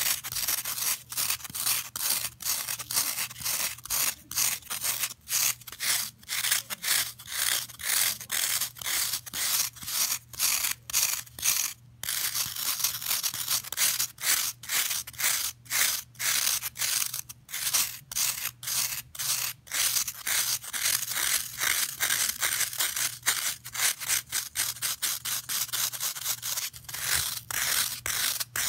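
Long fingernails scratching a block of dry green floral foam, a crumbly scraping in quick repeated strokes, two or three a second.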